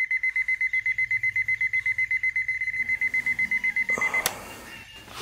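Digital alarm clock beeping rapidly at one high pitch, about ten beeps a second. It cuts off with a click about four seconds in.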